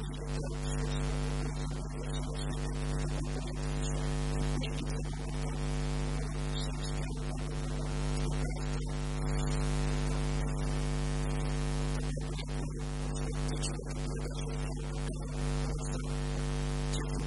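Steady electrical mains hum, a stack of unwavering tones under a constant hiss, picked up by the recording.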